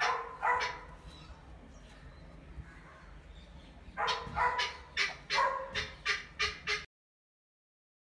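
A dog barking in short yips: a couple at the start, then a quick run of about eight from four seconds in, stopping abruptly near the end.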